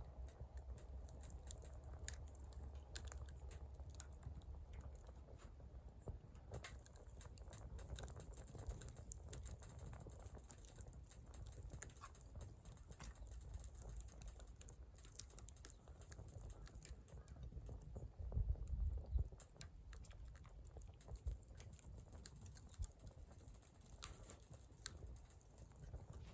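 Wood fire crackling faintly, with many small irregular pops and ticks.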